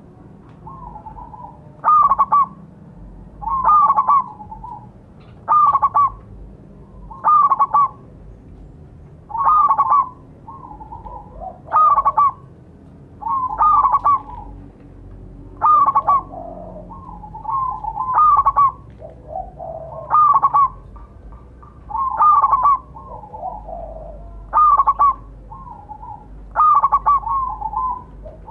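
Zebra dove (perkutut) cooing: short, loud phrases of rapid coos, repeated about every two seconds, with fainter, lower notes between some of them.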